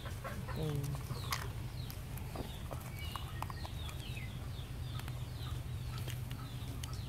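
Chickens: many short falling peeps with a cluck about half a second in, over a steady low hum, with a few light clicks.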